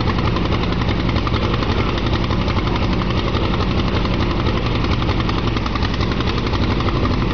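A 1947 Allis-Chalmers WC tractor's four-cylinder engine running steadily, its exhaust a fast even chug.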